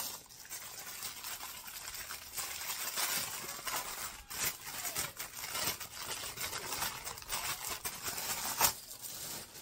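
Clear plastic packaging bag crinkling and rustling as it is handled and pulled open around a silicone mold, with a sharper crackle near the end.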